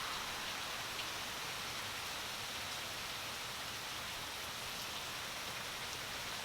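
Heavy rain pouring steadily, an even, unbroken hiss of downpour.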